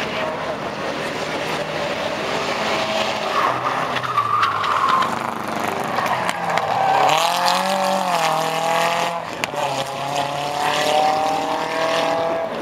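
Renault 8 race car's rear-mounted four-cylinder engine revving hard as it passes close through a corner. Its pitch dips and climbs again about seven to eight seconds in, with other race cars' engines running behind it.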